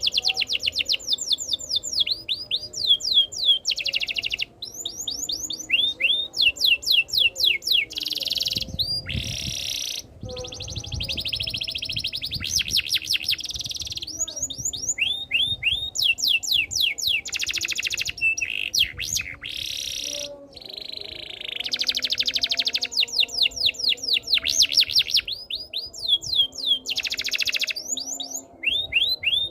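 Domestic canary singing a continuous song: quick runs of repeated downward-sliding whistled notes alternating with fast rolling trills, the phrase changing every second or two.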